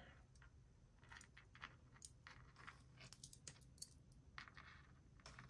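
Near silence with faint, scattered light clicks from hands handling small objects on a tabletop.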